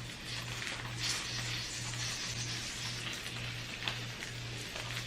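Food frying in a skillet, a steady sizzling hiss, with a few small clicks. A low hum pulses on and off about twice a second underneath.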